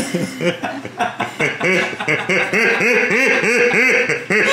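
Toy baby doll's electronic crying: a repeated wah-wah cry, about four cries a second, starting about a second and a half in and keeping on steadily.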